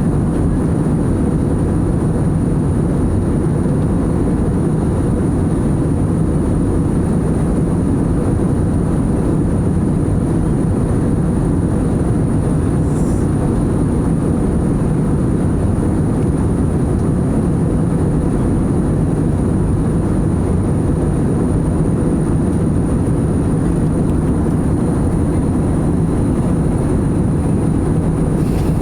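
Airliner cabin noise in flight: a steady low rush of jet engines and airflow, with a thin high steady tone above it.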